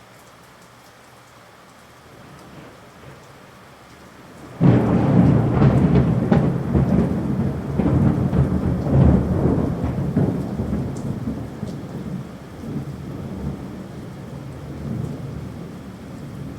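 Steady rain, then about four and a half seconds in a sudden loud thunderclap that crackles and rumbles on, slowly fading over the following ten seconds.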